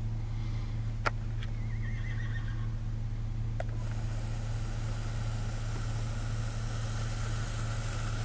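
A horse whinnying faintly, a short falling, wavering call about two seconds in. It sits over a steady low hum, with a few light clicks.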